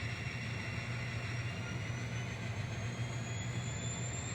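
N scale NS SD70ACe model diesel locomotive running along the track with its train: a steady low engine drone with a thin high whine slowly rising in pitch.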